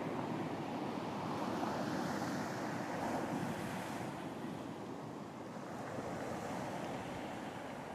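Ocean waves washing onto a beach in a steady rush, swelling slightly and easing off again, with some wind.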